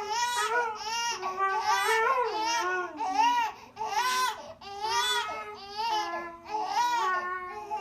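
A baby babbling and fussing, a long run of high, up-and-down vocal sounds with short breaks between them.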